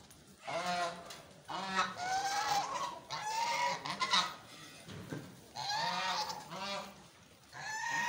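White domestic geese honking: a series of about five drawn-out honks, each around a second long, with short pauses between them.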